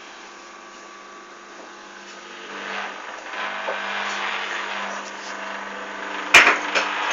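Hoover Dynamic front-loading washing machine on a cotton wash: a steady motor hum, then from about two and a half seconds in, surges of swishing and sloshing as the drum tumbles wet towels in sudsy water. A single sharp knock comes about six and a half seconds in.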